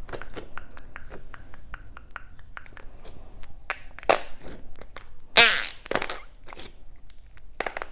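Close-miked ASMR trigger sounds: rapid small crackles and clicks throughout, with a louder squelchy sound about five and a half seconds in and another short burst near the end.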